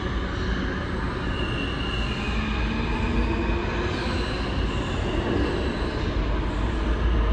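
R160A subway train pulling out of the station and running off into the tunnel: a steady rumble of wheels on rail, with a high wheel squeal about two seconds in.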